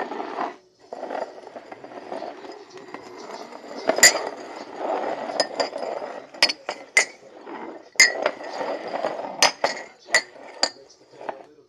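Upturned ceramic mugs clinking against each other and knocking on a wooden floor as they are moved around by hand. There are about a dozen sharp clinks at uneven intervals, the loudest about four and eight seconds in, some with a short ring.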